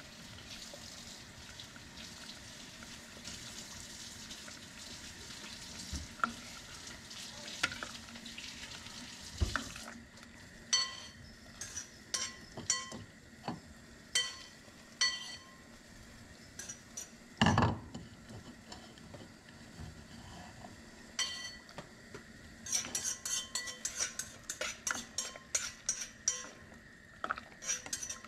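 Kitchen work at an aluminium stockpot of simmering broth: a steady hiss at first, then a string of light knocks on the pot that ring briefly, one heavier thump a little past the middle, and a quick run of taps and clinks near the end as the broth is stirred.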